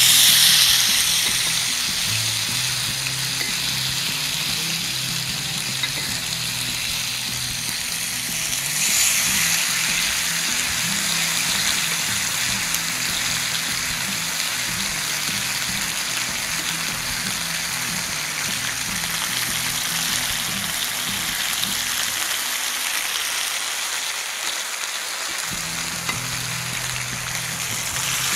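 Marinated chicken pieces sizzling in hot oil on a grill pan. The loud sizzle starts suddenly as the chicken goes on, swells again about nine seconds in and then settles into a steady fry.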